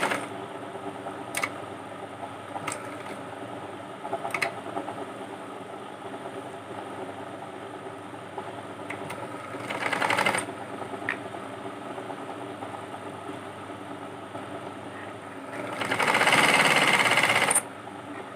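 Sewing machine stitching a seam through cotton fabric, running steadily with two louder, faster runs: one about ten seconds in, and one near the end that cuts off suddenly. A few sharp clicks come in the first five seconds.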